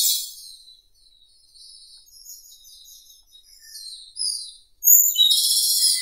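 Japanese robin singing. A loud, fast trill ends just as the sound begins, and soft scattered high notes follow. About five seconds in, a new loud phrase opens with a high note and runs into a fast, dense trill.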